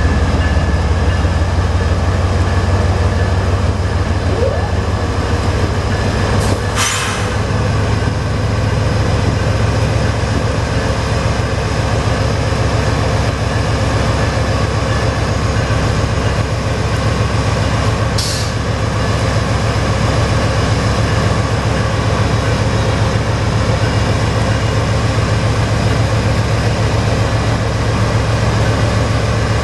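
CSX diesel freight locomotives rolling slowly past, their engines running with a steady deep rumble. Two brief sharp high-pitched sounds come about 7 and 18 seconds in.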